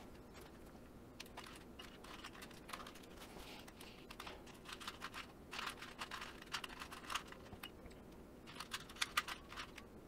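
Faint plastic clicking of a 2x2 Rubik's Cube being turned by hand, in irregular runs of quick turns with short pauses, busiest in flurries around the middle and near the end.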